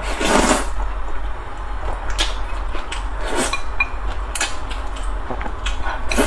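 A person slurping sauce-coated wide liangpi noodles, close to a clip-on microphone: one loud slurp lasting about half a second at the start, then chewing with scattered short wet clicks and smacks.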